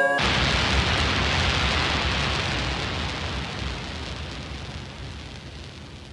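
Rain-like hiss with a low rumble underneath, closing the track; it cuts in abruptly and fades out slowly.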